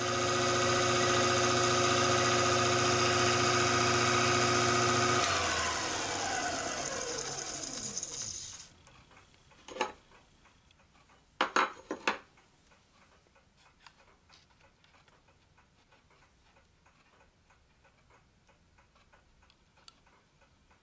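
Taig micro lathe running with a steady motor hum and whine, then switched off about five seconds in, its pitch falling as the spindle coasts to a stop over about three seconds. A few sharp knocks follow, one about ten seconds in and a close pair about two seconds later, then faint room tone.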